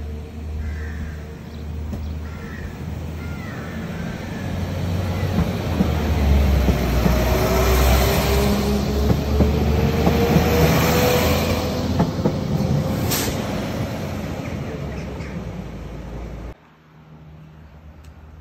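Transport for Wales Class 197 diesel multiple unit pulling out of the station and passing close by: engine rumble and wheels on the rails, with a whine rising steadily in pitch as it accelerates. A sharp click comes about thirteen seconds in, and the sound cuts off abruptly a couple of seconds before the end.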